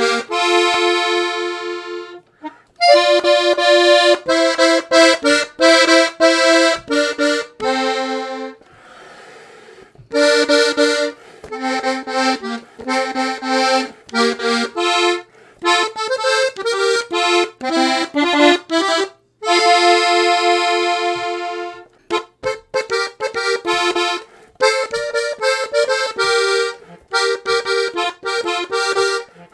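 Blue Parrot Falcon three-row diatonic button accordion in F-Bb-Eb with two middle reeds (MM), being played. It sounds short phrases of chords and quick melodic runs, broken by brief pauses, the longest about nine seconds in.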